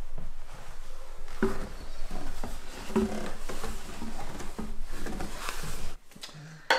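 Footsteps going down steep wooden loft stairs: irregular thuds on the wooden treads. Near the end the sound drops away suddenly, followed by a single sharp knock.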